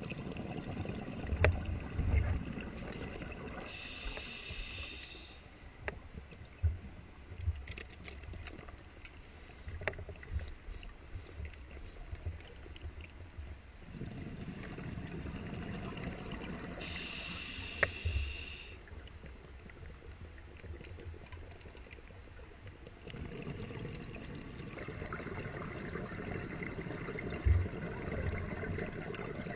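Scuba diver's regulator breathing, recorded underwater: two short hissing inhalations through the demand valve, about four seconds in and again about seventeen seconds in, between longer stretches of low rumbling exhaled bubbles. Scattered light knocks come through now and then.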